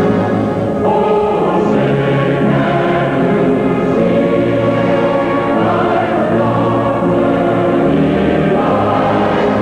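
Choir singing slow, sustained chords over an orchestra, the chords shifting every second or two.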